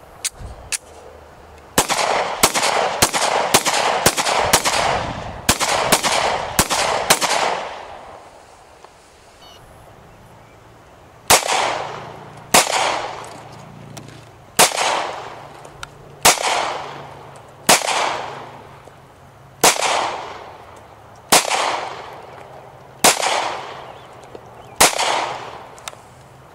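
Gunfire: a quick string of about a dozen shots, then a pause, then nine single shots at a slow steady pace, about a second and a half apart, each trailing off in a long echo.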